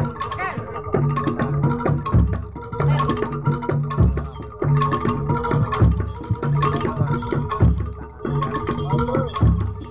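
Live Jaranan Dor percussion ensemble playing. A deep, low stroke comes about every two seconds over fast drum and metal-percussion strokes, with steady held tones.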